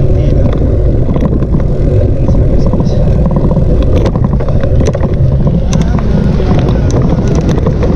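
Wind buffeting the microphone of a camera riding along on a moving bicycle: a loud, steady low rumble, with a few faint clicks and road sounds over it.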